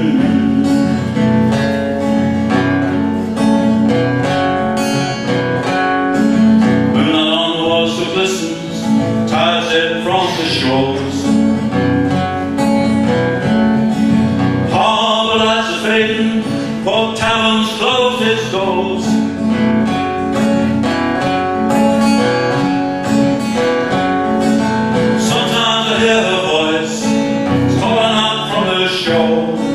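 A man singing a folk song to his own acoustic guitar, in phrases of a few seconds, with the guitar playing on through the gaps between them.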